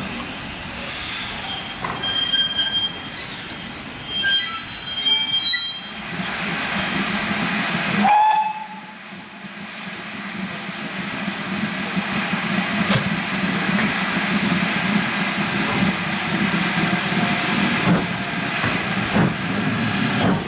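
Steam locomotive hauling a train on the line, a steady running sound that builds in loudness over the second half. A short whistle-like tone sounds about eight seconds in.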